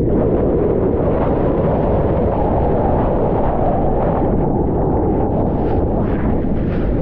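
Loud, steady rushing noise of wind buffeting a surfer's body-mounted POV camera microphone, mixed with the rumble of big-wave whitewater.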